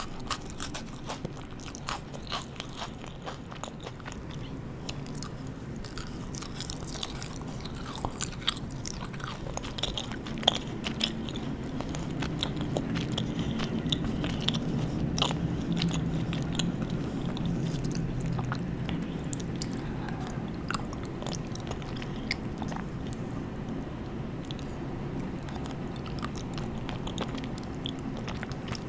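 Close-miked chewing and crunching of candy and sweets: many crisp bites and mouth clicks in the first half, then fuller, steadier chewing through the middle.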